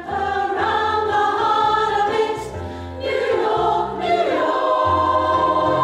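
Women's choir singing together in long held notes, phrase after phrase, with short breaks between phrases.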